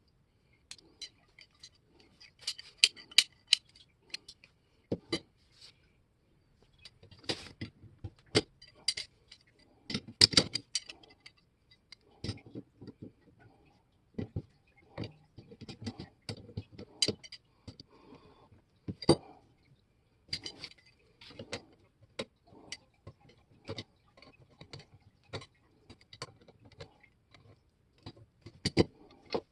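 Irregular metallic clicks and clinks of steel pliers being handled and worked, with a few louder knocks.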